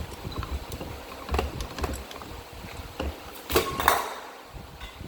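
Hand bead-forming tool being worked around a metal tube: irregular metallic clicks and knocks, with two loud, sharp clanks close together a little past three and a half seconds in.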